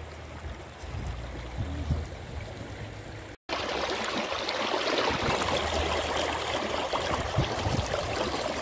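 Shallow river water rushing and splashing over rocks. After a brief cut about three and a half seconds in, the rushing is closer and louder.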